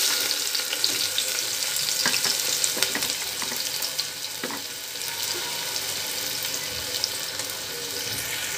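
Sliced onions sizzling in hot oil in a pressure cooker. The hiss is loudest just after they go in and settles a little, with a few light clicks.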